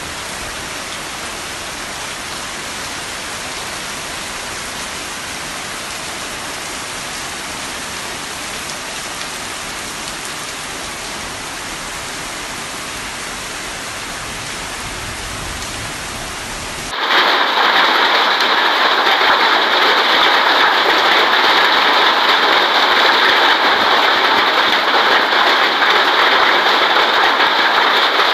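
Hailstorm with rain: a steady hiss of hail and rain coming down on garden plants. About two-thirds of the way through it cuts suddenly to a louder, harsher downpour of hail with less low rumble.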